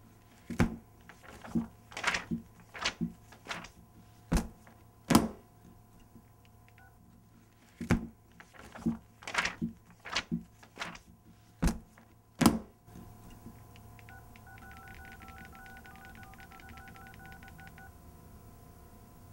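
A dozen or so loud, sharp crackles at irregular intervals over the first twelve seconds, from a crisp snack bag being crinkled. After a short pause comes a quick run of short electronic beeps, phone keypad tones, lasting about four seconds.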